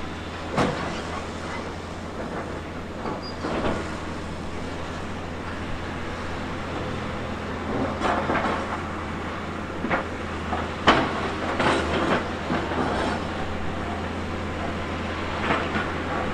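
Tracked earthmoving machine's diesel engine running with a steady low drone, with irregular metallic clanks and knocks every few seconds, the sharpest about eleven seconds in.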